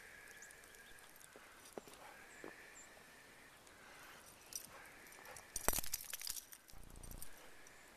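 Footsteps crunching in deep snow, faint, with a quick cluster of crunches a little after five seconds in, followed by a brief low rumble.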